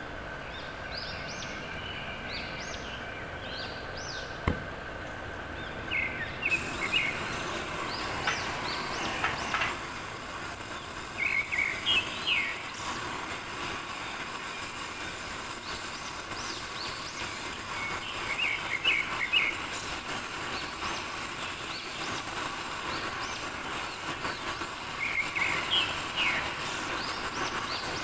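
Small birds chirping in short clusters every few seconds over a steady hiss from a gas cutting torch's flame heating a steel pipe to bend it. A single sharp click comes a few seconds in.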